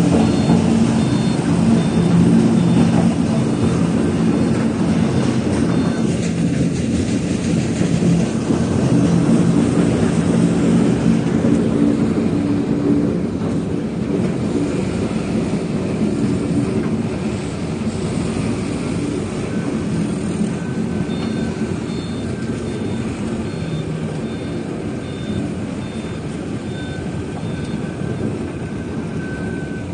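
Lugong 936LF wheel loader's diesel engine running hard as the machine drives and works its log grapple, easing somewhat in the second half. A high, evenly pulsed reversing-alarm beep sounds for the first few seconds and again in the last third.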